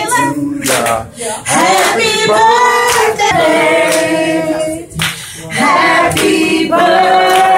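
A woman singing solo into a handheld microphone, holding long notes, with short breaks about a second in and about five seconds in.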